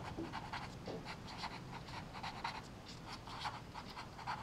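Pen scratching on paper in a run of short, quick strokes, writing out small letters by hand; faint.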